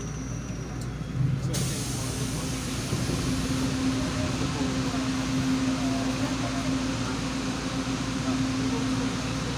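Inside a stopped LRT-2 railcar: a steady rush of air and a low hum from the car's onboard equipment. The hiss cuts in suddenly about a second and a half in, and the hum settles in just after.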